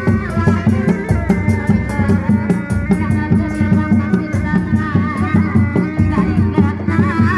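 Live kuda lumping ensemble music: steady, fast drumming with a crisp rattling percussion layer on top and a high, wavering melody line that bends in pitch.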